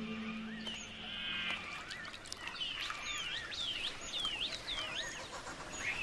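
Birds calling: a buzzy call about a second in, then a run of short sweeping chirps, about two a second. Soft background music fades out in the first second and a half.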